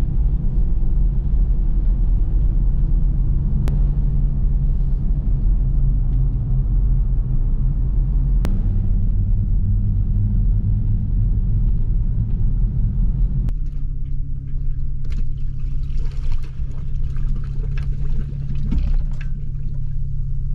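Engine and road noise inside a moving car's cabin, a steady low rumble. About two-thirds of the way through it changes to a steadier engine hum with scattered clattering and knocks.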